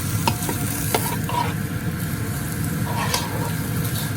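Cut-up chicken pieces sizzling steadily in a frying pan on medium heat, with a few sharp clicks against the pan.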